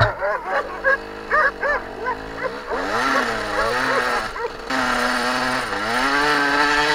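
Dirt bike engine revving up and down, with dogs barking in a string of short barks over the first two or three seconds. From about halfway the engine settles into a steadier, higher note.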